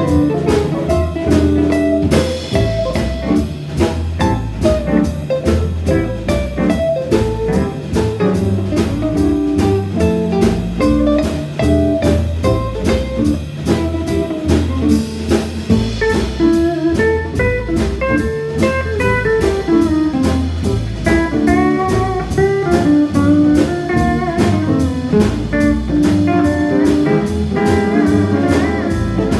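Small jazz combo playing live: pedal steel guitar, two acoustic guitars, upright bass and drum kit, with a steady beat and gliding melodic lines.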